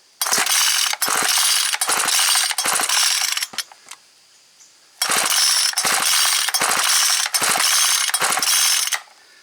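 Recoil pull-start rope of a Ryobi S430 four-stroke trimmer yanked repeatedly, in two bouts of about five quick pulls each, each pull a loud rasp. The engine does not catch.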